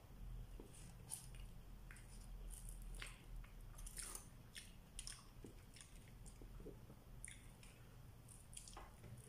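Faint eating sounds: chewing by mouth while bread is torn by hand over crinkling aluminium foil and a plastic bag. The crinkling comes as scattered small clicks and rustles over a low steady hum.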